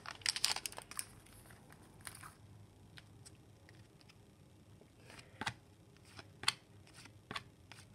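Faint handling of hockey trading cards: the pack wrapper rustles as the stack is pulled out, then the cards are slid and flicked through by hand, with a few sharper card snaps about five and six and a half seconds in.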